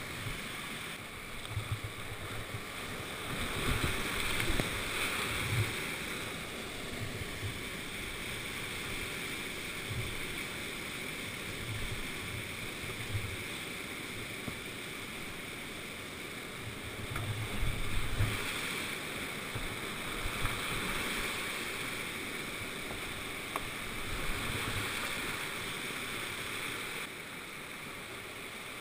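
Rushing whitewater of a steep boulder creek heard from a canoe running the rapids, with irregular low thumps throughout, heaviest a few seconds in and again just past the middle.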